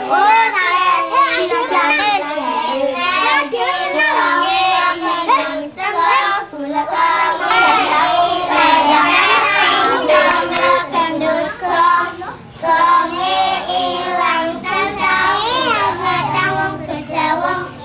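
Several young children singing a sing-song rhyme together, the kind of game song that keeps time for a finger-tapping hand game.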